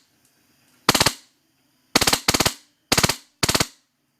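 Wolverine Inferno HPA (compressed-air) airsoft gun firing five short full-auto bursts of a few shots each, at about twenty shots a second on its medium rate setting. The bursts are separated by brief pauses.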